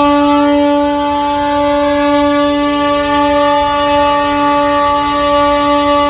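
A ship's horn sounding one long, steady blast at a single pitch.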